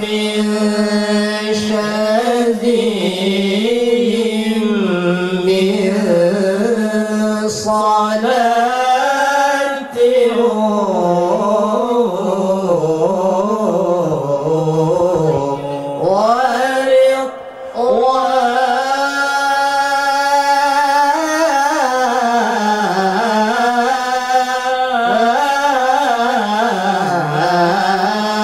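Male voices singing Islamic sholawat (devotional praise of the Prophet) into microphones, a melody drawn out in long, wavering phrases that rise and fall, with a short break about 17 seconds in.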